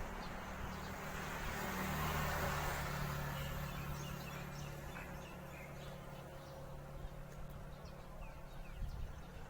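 A low, steady engine hum, louder about two seconds in and then slowly fading, with faint bird chirps and insects in the background.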